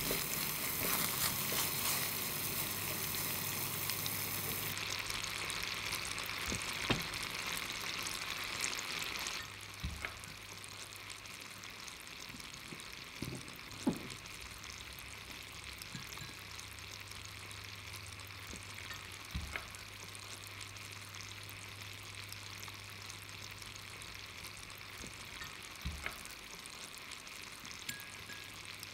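Sugar syrup boiling hard in a small saucepan, a dense bubbling sizzle that ends abruptly about nine seconds in. After that, quieter handling in a ceramic bowl of cold water, with a few light knocks, as drops of the syrup are tested there and the hardened strands are lifted out, the cold-water check of the candy syrup's stage.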